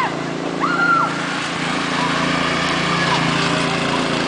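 Riding garden tractor engine running steadily as it tows a loaded cart across grass. About a second in, a short high-pitched squeal from a rider's voice.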